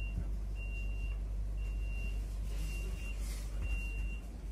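Door warning signal of a Stadler ESh2 double-decker electric train: a high steady beep about half a second long, repeating about once a second, over the low hum of the carriage.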